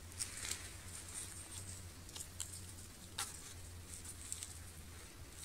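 Faint, scattered light crunches and clicks of footsteps on thin snow over dry leaf litter, the sharpest about three seconds in.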